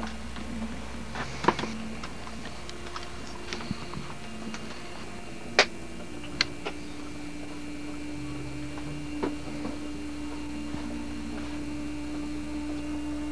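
Quiet room with a steady low hum and a few scattered sharp clicks and knocks, the loudest about five and a half seconds in; a steady tone comes in about six seconds in.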